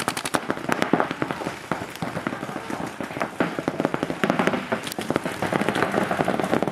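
Paintball markers firing: quick strings of sharp pops, fastest at the start, then irregular single shots and short bursts.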